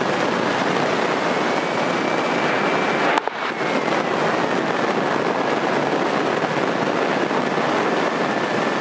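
Steady engine and propeller noise of a single-engine Grumman light aircraft taxiing, heard as an even hiss through the headset intercom, with a brief click and dropout about three seconds in.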